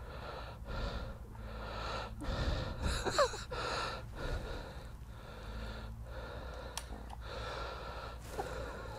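A woman breathing hard and gasping in repeated strained pushes, with a brief falling groan about three seconds in, as she struggles to break the barrel of a stiff, powerful break-barrel air pistol to cock it.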